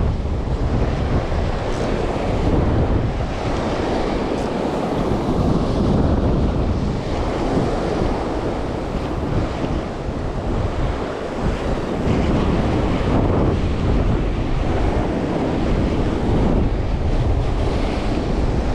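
Ocean surf breaking and washing over a rocky shore, with wind buffeting the microphone. It is a steady, dense rush that swells and eases slightly.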